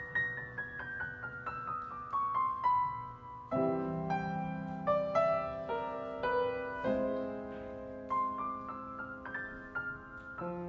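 Solo piano: a quick run of notes falling in pitch over the first three seconds, then fuller chords over low bass notes from about three and a half seconds in.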